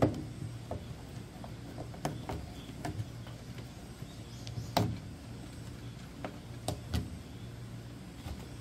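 Scattered light clicks and knocks of gloved hands working the plastic panels and inlet fittings of a top-loading washing machine being taken apart, with a firmer knock about five seconds in, over a steady low hum.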